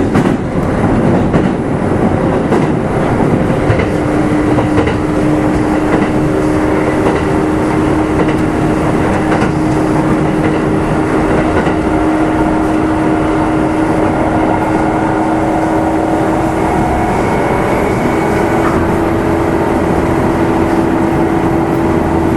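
Kintetsu 2610-series train running, heard inside motor car Mo 2669: wheels knock over rail joints in the first few seconds. From about four seconds in, a steady droning tone rides over the running noise.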